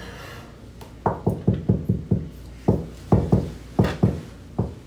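A quick, slightly uneven beat of short low thumps, about four to five a second, starting about a second in.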